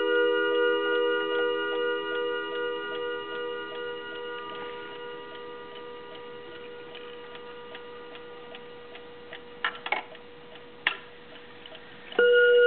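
Gong rods of a Junghans balance-wheel mantel clock ringing after a strike, a chord of several tones dying away slowly over the quick, steady ticking of the movement. A few sharp clicks come about 10 and 11 s in, and about 12 s in the rods are struck again and ring out loudly.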